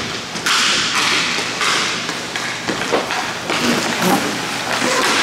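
Hockey play: skates repeatedly scraping the playing surface in half-second strokes, with sharp stick and puck knocks and thuds, the loudest about three seconds in.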